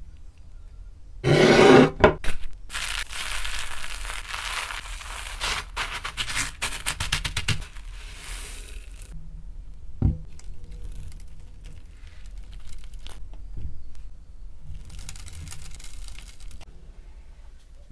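Dry breadcrumbs crackling and rustling as a tortilla is pressed into them and coated, with a loud rustle about a second in and a single knock about ten seconds in.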